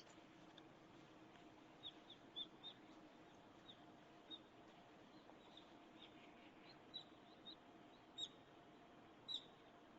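Faint, short, high bird chirps at irregular intervals, about a dozen, the clearest near the end.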